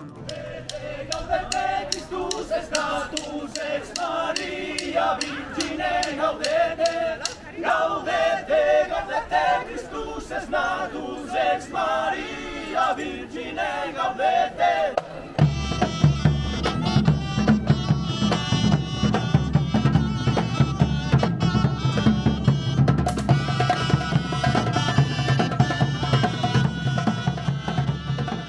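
Medieval street band music: pipes playing a melody over a hand drum and cymbal. About halfway through it cuts abruptly to a louder band of large drums beating steadily under shrill pipes.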